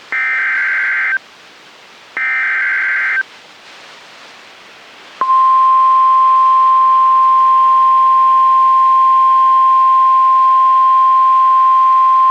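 Emergency Alert System SAME header: two short, harsh warbling data bursts about a second apart, the digital code that tells alert receivers a severe weather alert is coming. About five seconds in, the steady single-pitch NOAA Weather Radio warning alarm tone starts, the alert tone that comes before the spoken message.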